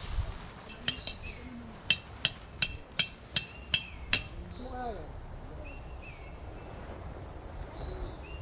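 Tent stake being hammered into hard ground: a run of sharp strikes, a little under three a second, stopping about four seconds in. Birds chirp after it.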